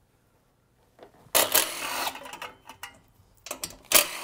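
Milwaukee cordless impact driver running in two short bursts, about a second and a half in and again near the end, loosening screws on the leaf blower's cylinder shroud.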